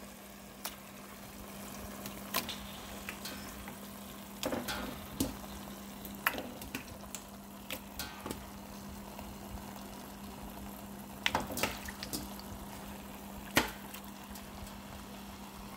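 Raw beef chunks sizzling in a pot of fried spice paste, with scattered sharp knocks and clicks of a wooden spoon and meat pieces against the pot. A steady low hum runs underneath.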